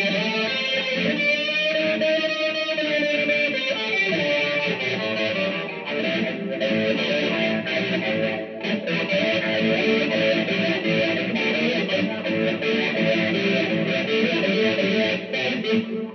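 Guitar playing a blues tune, picked notes and chords running on steadily without a break.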